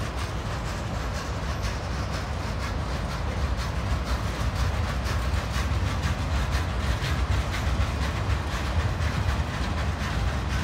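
Freight cars of a long mixed freight train, autoracks and boxcars, rolling past at steady speed. Their wheels rumble on the rails, with frequent clacks as they cross the rail joints.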